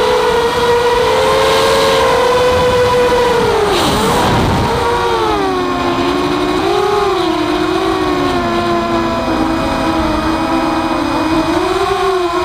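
Walkera F210 racing quadcopter's brushless motors and propellers whining, the pitch rising and falling with the throttle. About four seconds in, the pitch drops sharply and climbs back.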